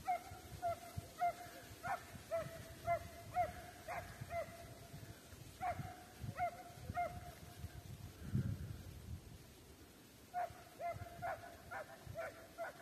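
Estonian hound giving tongue while running a hare: regular barks at about two a second, in three runs with pauses between.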